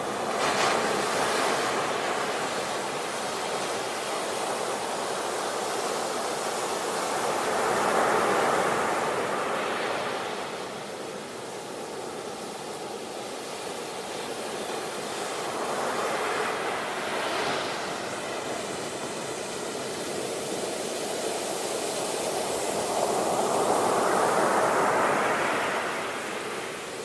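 Sea waves breaking and washing on a shore, in slow surges that swell and fade about every eight seconds.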